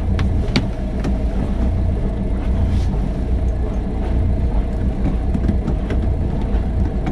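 Boat engine idling with a steady low rumble, with scattered light clicks and knocks of the fishing machine's power cable being handled and connected.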